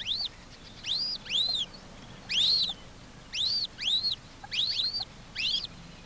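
Coot chicks peeping: a dozen or so thin, high calls, each rising and then falling in pitch, often in quick pairs, with short pauses between them.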